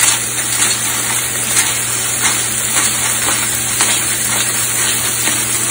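Ribeye steak sizzling steadily in a hot cast iron pan, loud enough to sound like burning though it is not. A hand-turned pepper mill grinds over it with faint irregular ticks.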